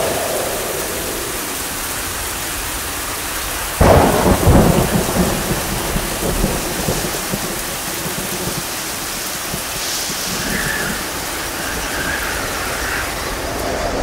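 Thunderstorm: steady rain, with a sudden thunderclap about four seconds in that rumbles on for a couple of seconds.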